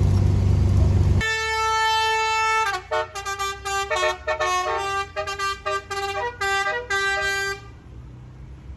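Loud low engine and road rumble of an angkot minibus, giving way about a second in to its telolet multi-tone horn playing a tune: one long held note, then a run of short notes changing pitch. The horn stops near the end.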